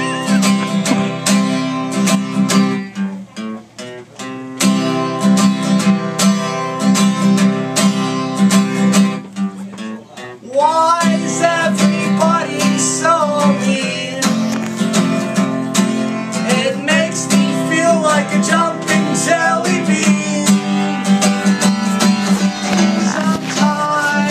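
Acoustic guitar strummed in a steady rhythm, with a voice singing a melody from about ten seconds in. The strumming softens briefly twice, around three seconds in and just before the singing starts.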